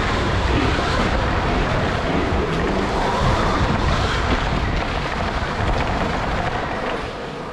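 Riding a dirt bike around a motocross track: a steady rush of wind and tyre noise on the rider's microphone, easing slightly near the end.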